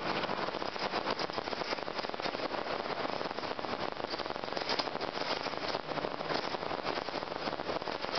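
Inside a moving city bus: steady engine and road noise with frequent light rattling and clicking.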